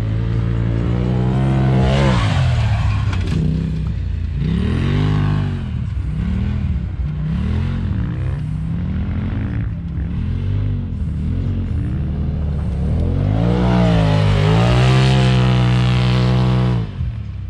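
A Polaris RZR side-by-side's turbocharged twin-cylinder engine revving up and down over and over, about once a second, then climbing and holding at high revs before dropping off sharply near the end.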